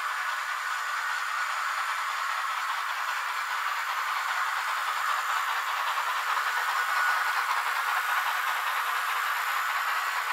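Steady steam hiss and rolling noise from a sound-equipped model BR 52 steam locomotive and its coaches running past on model track.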